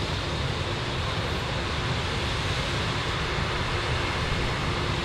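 Heavy farm machinery running steadily in a corn harvest, a constant engine drone with an even hum and no changes.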